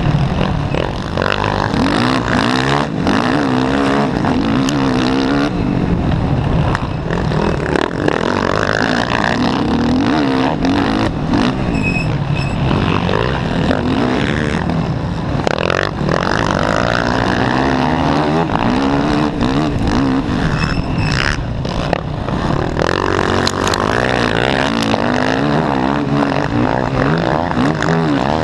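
Racing quad's engine heard from the rider's helmet, revving up and falling back over and over as it accelerates and shifts. Occasional sharp knocks cut through.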